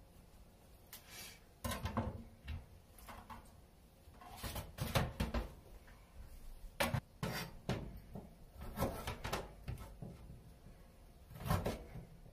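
Kitchen prep clatter: scattered knocks and clinks of a kitchen knife, a small stainless bowl and other utensils handled and set down on a stainless steel counter and sink, in several short clusters.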